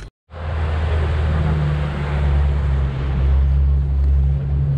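Motorboat engine running steadily while the boat travels across the reservoir, a deep hum under a rush of wind and water; it cuts in after a brief dropout just at the start.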